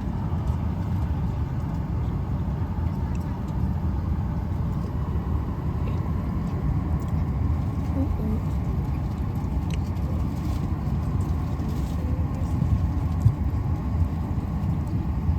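Steady low rumble of an airliner cabin in flight: engine and air noise, unchanging throughout.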